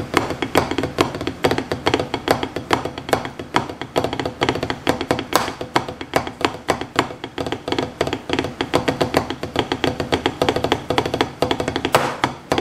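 Wooden drumsticks tapping a rubber-topped Vater drum practice pad in a fast warm-up of rolls and rudiments. The taps come many to the second, with a few louder accented strokes.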